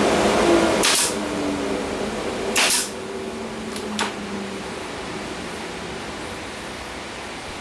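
Pneumatic nail gun firing twice, about a second and a half apart, driving nails through wooden border strips into the board, then a lighter knock, all over a steady hum.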